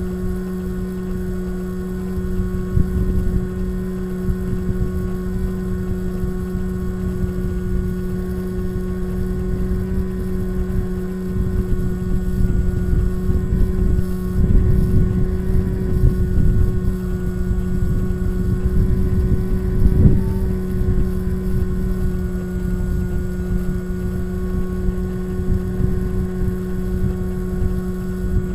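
Bixler RC glider's electric motor and propeller droning steadily, with small dips in pitch, heard from a camera inside the canopy, under rough wind rush over the airframe that gusts louder around the middle.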